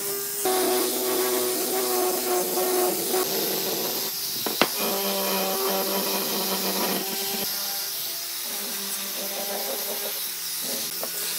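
Electric power tool running against wood, a steady motor hum under a hissy rubbing noise. The hum's pitch shifts a few times as the load changes, and there is one sharp click about four and a half seconds in.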